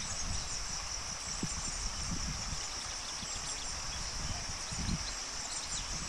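Steady high-pitched drone of insects in the trees, with an uneven low rumble underneath.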